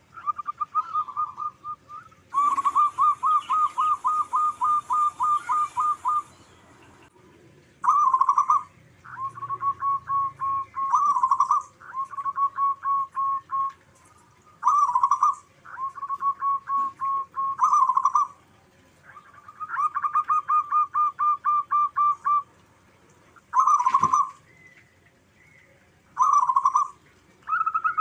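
Zebra dove (perkutut) song: bouts of quick staccato coo notes, several a second, repeated phrase after phrase with short pauses between. A brief sharp click comes near the end.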